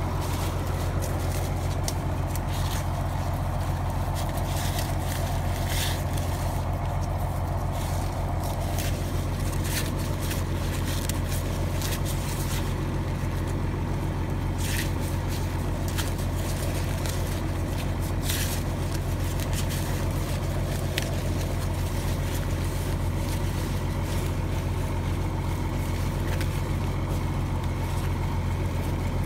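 A farm tractor engine and corn harvesting machinery running with a steady, unchanging low drone. Dry corn husks and leaves crackle in short, scattered bursts over it as an ear is husked by hand.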